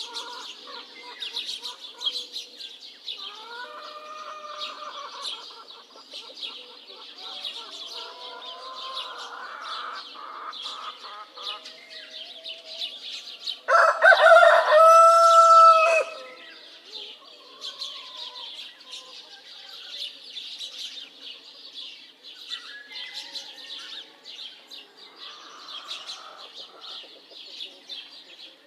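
A rooster crows loudly once, about halfway through, for roughly two seconds, over steady chirping of many small birds. Fainter calls from chickens come earlier.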